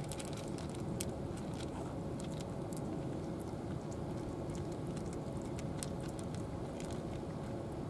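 Two cats eating from plastic trays, with irregular small clicks of chewing and licking. A steady low hum runs underneath.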